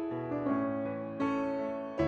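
Soft piano music: single notes and chords struck one after another and left to ring and fade.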